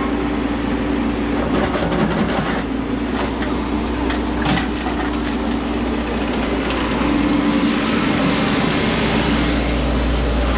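Caterpillar 432E backhoe loader's diesel engine running steadily as the backhoe digs, with a few short knocks and rattles. It grows louder near the end, close to the cab.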